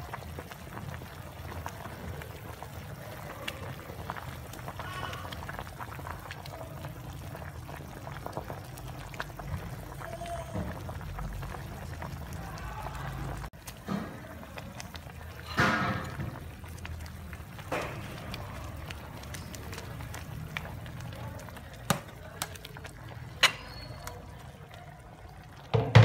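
Pot of soup boiling on the stove, bubbling steadily. In the second half there are several sharp clicks and knocks.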